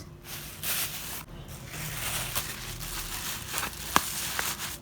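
Clear plastic bags crinkling as they are crumpled and pushed as stuffing into a tape-laminated paper box, with scattered sharp crackles, the sharpest about four seconds in.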